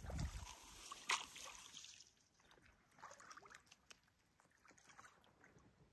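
Kayak paddling: paddle strokes in the water and dripping from the blade, with one sharp knock about a second in. After about two seconds it drops to faint scattered ticks and drips.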